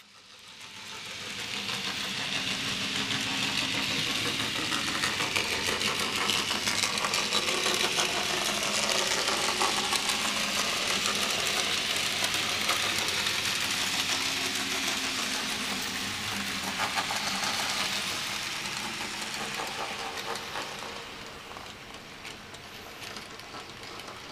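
Model Ivatt Class 2MT 2-6-0 locomotive and its coaches running along model railway track: a steady mechanical whir with fine rapid ticking from motor and wheels. It grows louder over the first couple of seconds and fades away in the last few seconds.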